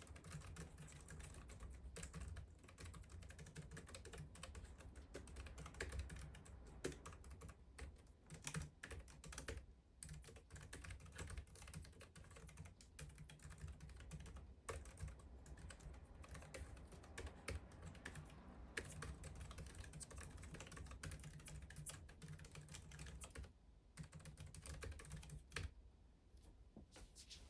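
Quiet, steady typing on a Keychron B1 Pro slim keyboard: a continuous patter of soft keystroke clicks that thins out with short pauses near the end.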